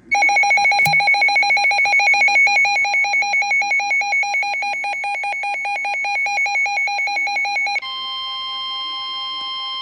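Emergency alert warning tones. A loud, rapidly warbling two-pitch alarm beep lasts for nearly eight seconds, then switches abruptly to one steady, unbroken alert tone.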